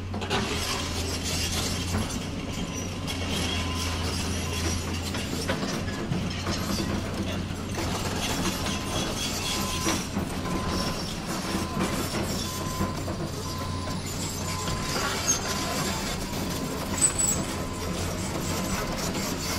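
Radio-controlled Huina model excavator's electric motors and plastic gearboxes whirring with a steady, dense ratcheting clatter as it works its arm and tracks, with two sharp clicks a little after the middle.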